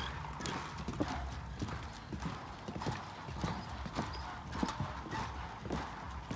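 Footsteps on the wooden plank deck of a suspension footbridge, about two steps a second.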